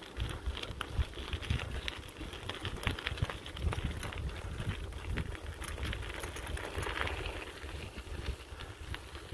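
Bicycle tyres rolling over a gravel towpath, a steady crunching full of small crackles, over a low rumble.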